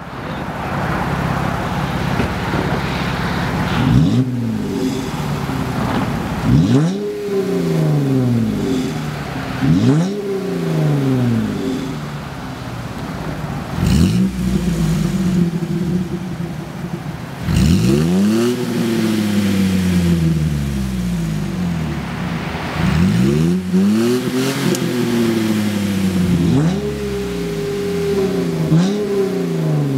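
Jeep Wrangler JK V6 with an aftermarket cat-back exhaust being revved repeatedly, about nine quick throttle blips, each rising sharply and falling back toward idle between them.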